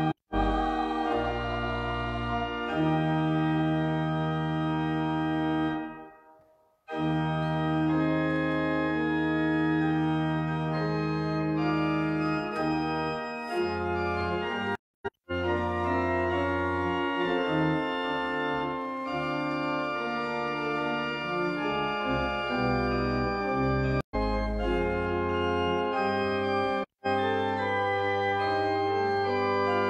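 Church organ playing slow, sustained chords that change step by step, with a phrase fading out about six seconds in before the playing resumes. The sound cuts out for a split second three times in the second half.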